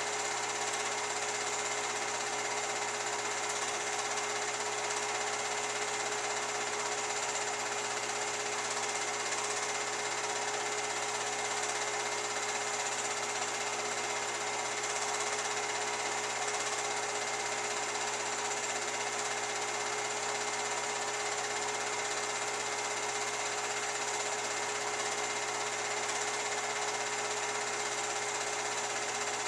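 Home-movie film projector running: a steady mechanical whirr with a constant hum, unchanging throughout.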